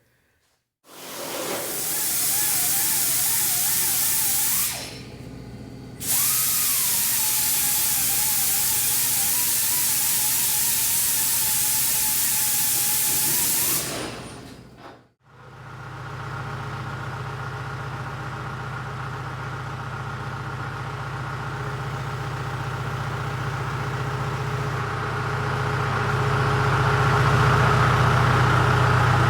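Angle grinder grinding down welds on sheet metal, its whine wavering under load, in two runs with a short pause between. After a break about fifteen seconds in, an engine runs steadily, growing louder near the end.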